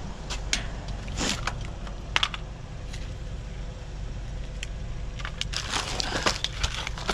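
Plastic bags and packaging rustling and crinkling as discarded items are rummaged through, in scattered clicks and crackles that grow busier in the second half, over a steady low rumble.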